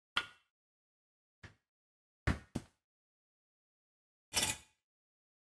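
A handful of short, sharp metallic knocks and clanks from hand tools on a concrete floor, separated by silence: two close together about halfway through, and a longer clatter near the end.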